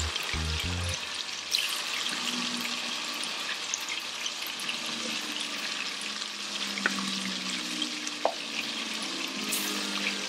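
Battered chicken pieces deep-frying in hot oil in a pot, a steady dense sizzle, with a few sharp clicks near the start and later on.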